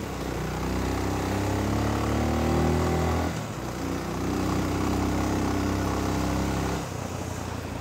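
Dirt bike engine pulling under throttle with its pitch climbing. The pitch drops off sharply about three seconds in, then the bike pulls again and eases off again about a second before the end.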